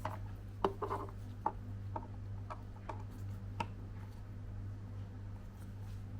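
Bambu Lab P1S 3D printer running with a steady low hum, and light, irregular clicks and ticks over the first few seconds that then die away.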